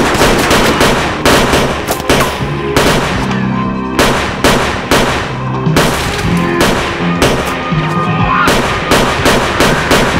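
Handgun gunfire in rapid strings of shots with short breaks between them, over a film music score with sustained low notes.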